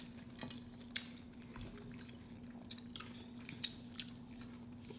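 Two people chewing and biting into panko-crusted fried crab balls up close, with scattered small crunches and mouth clicks. A steady low hum runs underneath.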